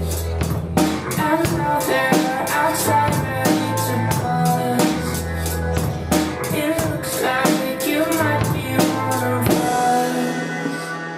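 Drum kit played along to a recorded rock backing track with bass and synth, with steady kick, snare and cymbal hits. About nine and a half seconds in the drumming stops, and held synth and bass notes ring on.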